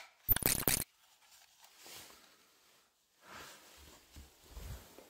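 A brief loud rustle of handling noise about half a second in, then faint shuffling and a few soft footsteps.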